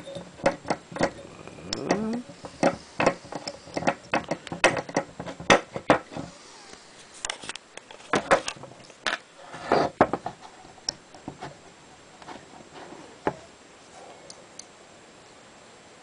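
Screwdriver and steel parts of a side-by-side shotgun action clicking and tapping as the old hammer spring is levered out: irregular sharp clicks, many in the first ten seconds, then fewer, dying out a couple of seconds before the end.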